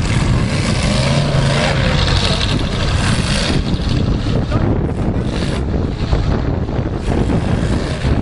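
Demolition derby cars' engines running and revving, with a few rising and falling revs about a second in, over a steady loud rumble.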